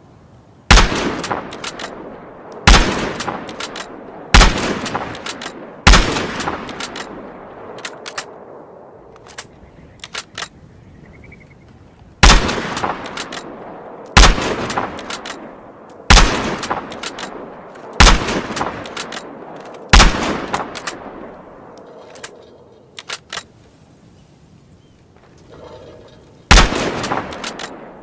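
Springfield M1903 bolt-action rifle, .30-06, firing ten single shots, each with a ringing echo that dies away. The shots come in groups spaced about two seconds apart, the time it takes to work the bolt. Faint clicks fall in the pauses between the groups.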